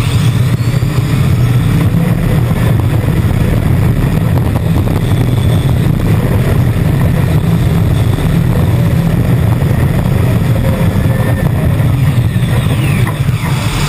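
Modified tractor puller powered by a Klimov TV3-117 helicopter turboshaft, running flat out under load during a pull. Heard onboard the machine as a loud, steady, low roar with rattling.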